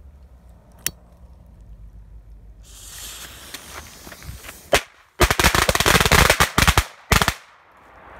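A 'firecracker machine gun', a pack of small red stick firecrackers fired from a single fuse: the fuse hisses, one bang goes off, then the rest crackle off in a rapid string of loud bangs for about two seconds, with one last bang after it.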